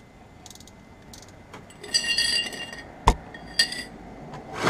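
Metal hand tools clinking: a few faint ticks, then about two seconds in a metallic clink that rings briefly, a sharp knock about a second later, and another short ringing clink from the socket and ratchet being handled.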